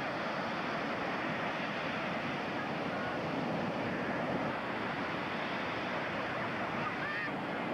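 Ocean surf breaking and washing up the beach: a steady, even rush of noise.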